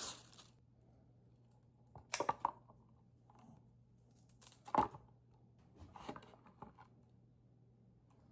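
Short bursts of handling noise: three brief clusters of clicks and rustles, about two seconds apart, over a faint steady hum.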